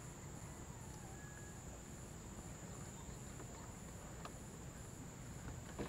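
Faint insect chorus: a steady high buzz with pulses of chirping just above it, over a low rumble.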